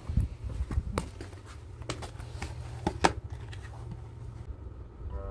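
A few sharp clicks and taps as a plastic food tray is handled and set down on concrete, over a low steady rumble.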